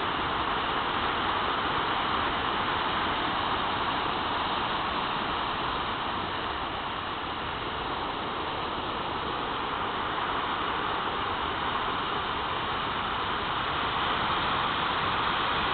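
Heavy surf from a hurricane swell breaking on the shore and against a breakwater: a steady wash of churning water noise, swelling a little near the end.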